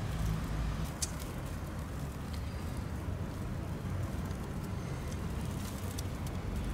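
Steady low background rumble of distant road traffic, with a few faint clicks over it.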